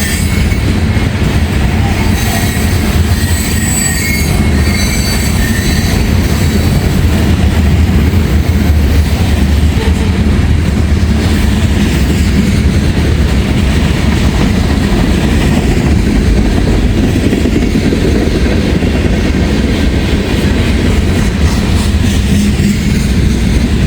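Freight train cars, among them auto racks, rolling past close by: a loud, steady rumble of steel wheels on rail, with a high wheel squeal for a few seconds near the start.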